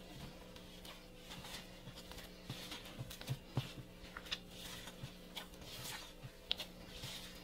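Soft, scattered taps and clicks of kitchen work over a steady low hum.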